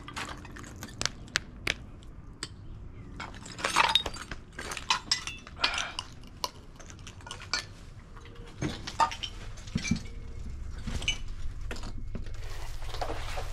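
Footsteps and scrambling over debris: irregular clinks, crunches and clatters, as of broken glass and rubble shifting underfoot. A low hum grows louder near the end.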